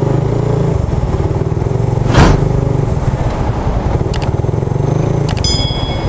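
Suzuki Raider 150 carburetted single-cylinder motorcycle engine running steadily at low speed. About two seconds in there is one short, loud rush of noise. Near the end come a few sharp clicks and a bright chime from an on-screen subscribe-button animation.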